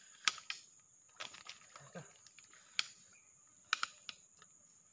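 Insects droning steadily in one high tone, with a scattering of sharp clicks and taps, the loudest about a quarter-second in and again near three and three-quarter seconds.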